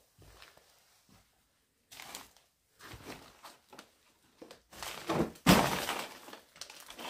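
A series of knocks and scrapes of objects and debris being disturbed, with one loud, sharp crash about five and a half seconds in.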